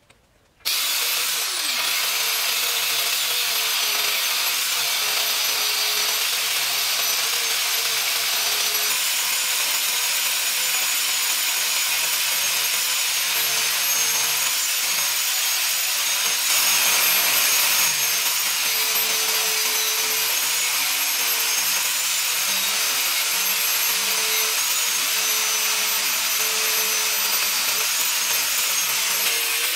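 Angle grinder on a sliding carriage, its abrasive disc cutting into steel plate: a steady high motor whine over a harsh grinding hiss, starting abruptly about half a second in, its pitch wavering a little as the disc bites.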